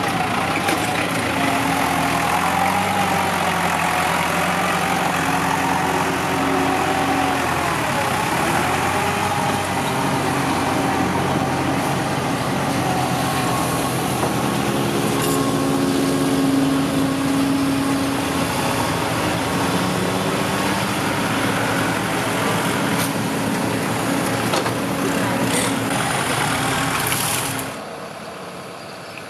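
Diesel tractor engines working under load while dozing soil: a New Holland TS90 with a front blade, with a Kubota tractor working nearby, in a steady, loud engine drone. The sound falls away sharply near the end.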